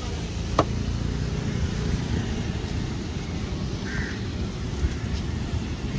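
Steady low rumble of surf and wind on the microphone, with one sharp knock of a heavy knife chopping into a wooden block about half a second in. A short faint bird call comes near the middle.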